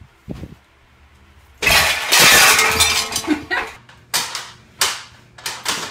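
A loud crash lasting about two seconds, followed by a run of sharp bangs about half a second apart.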